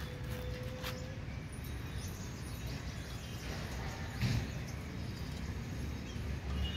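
Steady low outdoor background noise, with a short faint thump a little past four seconds in.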